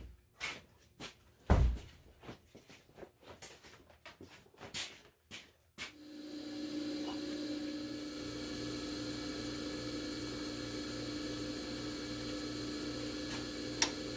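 A shop door being handled and someone moving about: a string of knocks and clicks, the loudest about a second and a half in. About six seconds in, a steady machine hum with a low, even pulsing starts and carries on.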